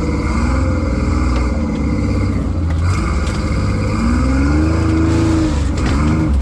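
Rock crawler's engine working on a trail, its revs rising and falling repeatedly over a steady deep rumble. There is a longer swell in revs past the middle and a few quick blips near the end.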